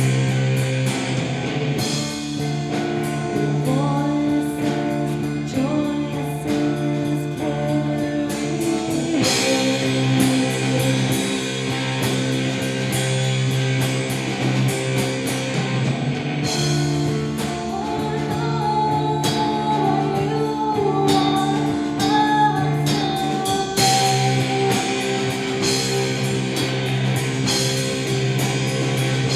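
Rock band demo: electric guitar, bass and drum kit playing, with a sung vocal line in stretches.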